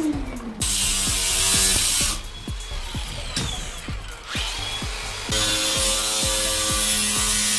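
A power drill running in two bursts, the first about a second and a half long and the second about three seconds from past the middle on, over background music with a steady beat.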